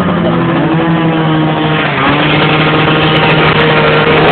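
Loud small dirt bike engines running, a steady drone with a second engine's pitch shifting up and down a little as the throttle moves.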